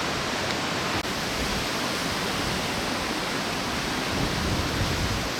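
Steady rush of the fast-flowing, flood-swollen River Esk, mixed with wind, with a brief break about a second in.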